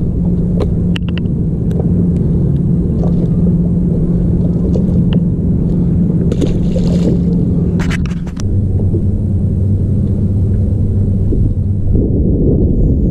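Steady low hum of a bass boat's motor over a rumble; the hum drops in pitch about eight and a half seconds in. A few light clicks and a short hiss come around the middle.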